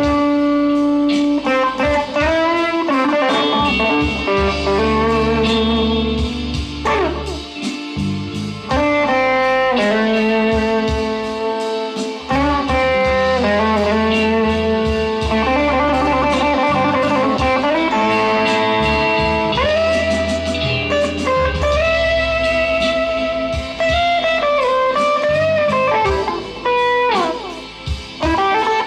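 Fender Player Stratocaster HSS Plus Top electric guitar played through an amplifier: sustained single-note lines with vibrato and several bent notes, over steady low notes.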